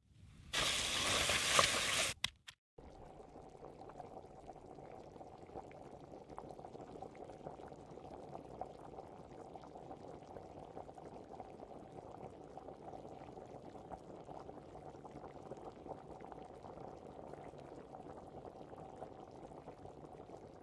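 Vegetable stew simmering in a clay pot, a steady faint bubbling with small pops. Near the start a loud hiss lasts about a second and a half.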